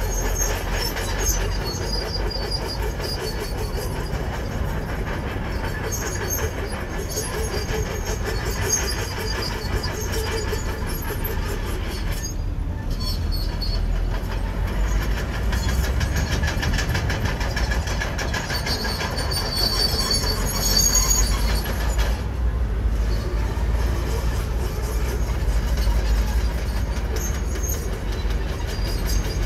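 Komatsu bulldozer working: its diesel engine runs under load, and its steel tracks clank steadily with intermittent high-pitched squeals from the track running gear.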